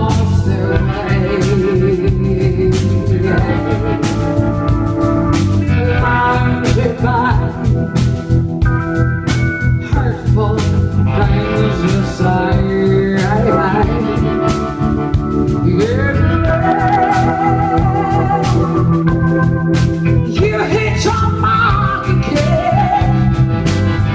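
Live blues-rock band playing: a woman sings with wide vibrato and swooping pitch over electric guitar, sustained chords and a steady drum beat.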